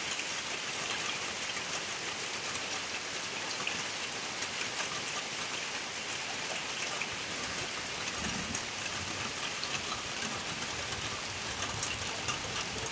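Heavy rain falling steadily on wet ground and puddles: an even hiss with many close drops ticking through it.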